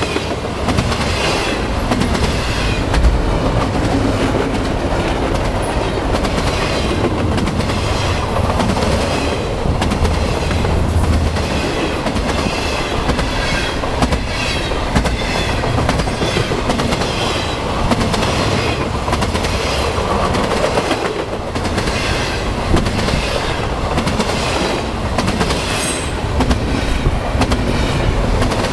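A train running steadily, its wheels clacking over the rails in a repeating rhythm.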